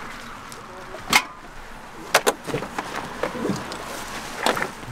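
Camping gear being loaded into the open rear cargo area of an SUV: a few sharp knocks and clunks. The loudest comes about a second in, a quick double knock follows just after two seconds, and a cluster of knocks comes near the end.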